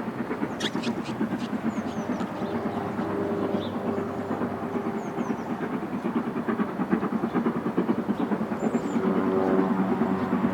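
A train running along the line with a steady rumble and rapid clatter, growing slightly louder near the end.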